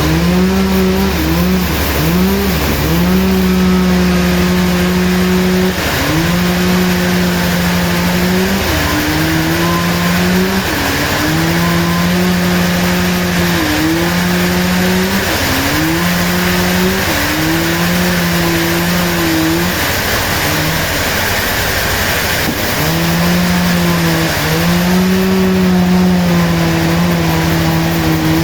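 Sawmill engine running fast and steady, its pitch dipping briefly and recovering over and over.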